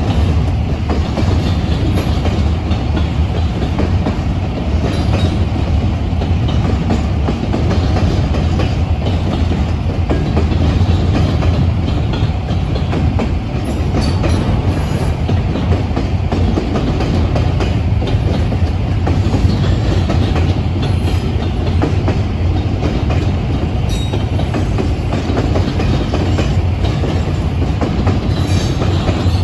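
Double-stack container train's freight cars rolling past: a steady, deep rolling noise with a few faint clicks scattered through it.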